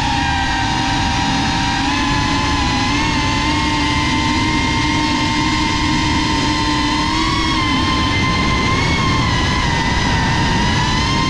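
FPV quadcopter's motors and propellers whining, heard from the onboard camera, over a constant rush of wind and prop wash. The pitch rises and falls slightly as the throttle changes.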